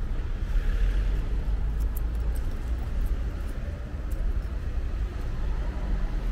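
Street ambience: a steady low rumble of road traffic, swelling slightly about a second in.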